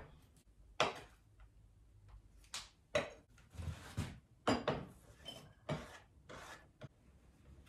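Kitchen knife cutting an onion on a wooden chopping board: irregular knocks of the blade against the board mixed with short slicing and scraping strokes.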